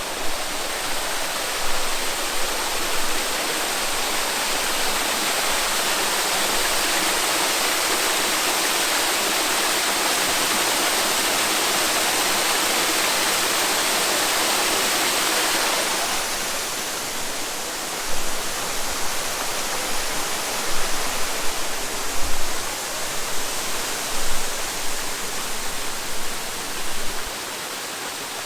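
Waterfall pouring: a steady rush of falling water. About halfway through it becomes quieter and less even, with a few short louder bumps.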